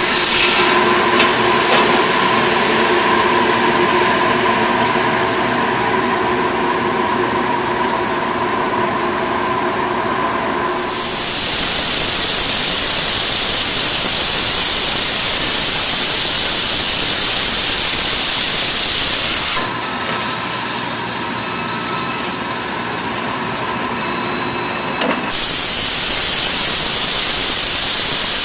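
An automated log-milling machine running. For the first ten seconds or so there is a steady machine whine with several held tones. About eleven seconds in, a loud hiss starts; it falls back for a few seconds near twenty seconds in, then returns.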